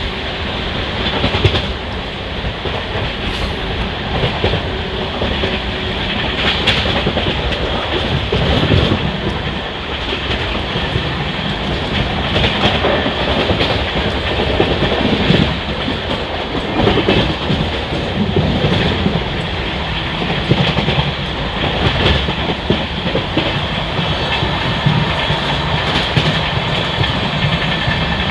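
Passenger train running on the line: steady rolling noise, with wheels clattering irregularly over rail joints.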